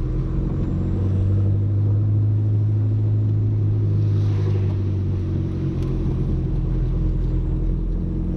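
Audi A3 1.8T's turbocharged four-cylinder engine running at low, steady revs while the car rolls slowly, its note shifting lower about five and a half seconds in.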